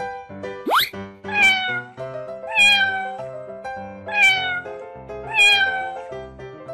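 Cat meows, four in a row, each falling in pitch, over light background music. A quick rising swoop sounds just before the first meow.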